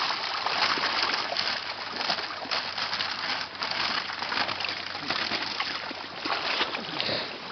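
Water splashing and sloshing continuously, a dense patter of many small splashes.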